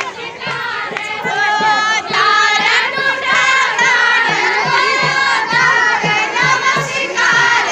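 A group of women singing a chanchari, a Kumaoni folk song sung by dancers together, many voices in unison over a steady low beat about three times a second.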